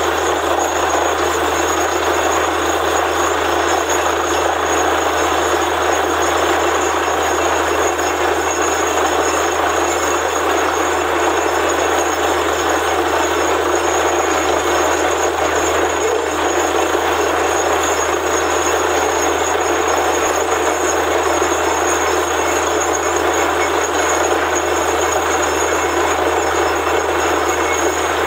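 Borewell drilling rig running: a loud, steady mechanical din from its engine and drilling gear, unchanging throughout, with a constant high whine on top.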